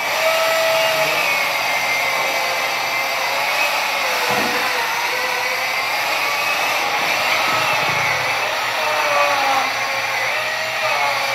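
Battery-powered electric chainsaws running and cutting into blocks of ice, a steady loud motor whine whose pitch wanders up and down as the blades bite and ease off.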